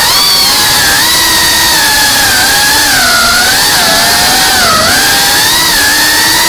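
FPV racing quadcopter's motors and propellers whining loudly and continuously, the pitch wavering up and down as the throttle changes through the turns.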